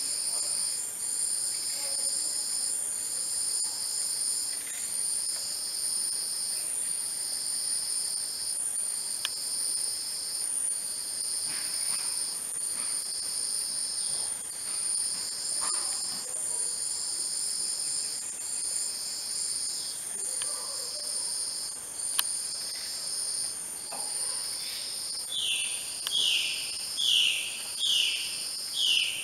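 Rainforest insects calling: a steady high-pitched drone with a second insect's call pulsing about once a second. Near the end a run of short, downward-sliding calls from another animal comes in, louder than the insects.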